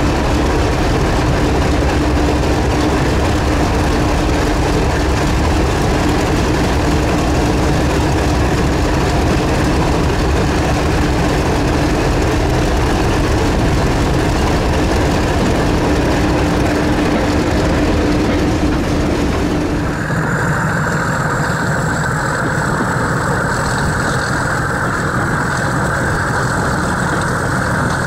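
Class 31 diesel-electric locomotive 31601 under way, heard from its cab side window: its English Electric diesel engine and wheels on the rails making a loud, steady drone with a steady hum, echoing in a tunnel. About twenty seconds in the sound changes abruptly: the low drone and hum drop away and a higher hiss with a thin high whine takes over as the locomotive comes out into the open.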